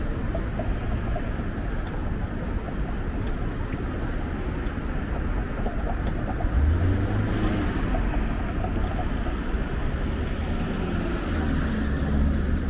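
City street ambience: traffic going by, with wind rumbling on the microphone. The low rumble swells about halfway through and again near the end.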